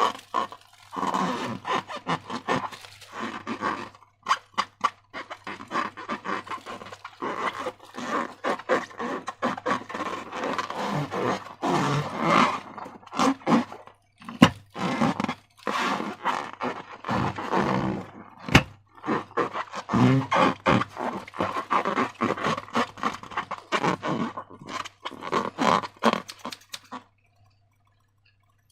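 Sticky slime being squeezed and worked by hand, a dense run of wet squelches and crackles that stops near the end.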